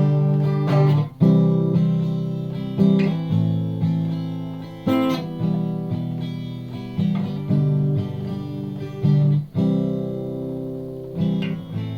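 Acoustic guitar strumming chords in a song's instrumental outro, one chord struck every second or two and left to ring and fade before the next.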